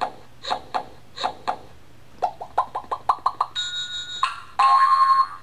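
Electronic sound effects from a children's play-a-sound book's button speaker: three short repeated chime-like blips, then a quick run of beeps rising in pitch, a steady electronic tone, and a loud buzzing tone near the end.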